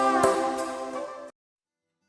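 Background music with a steady beat, fading and then cutting off abruptly about a second and a half in, followed by silence.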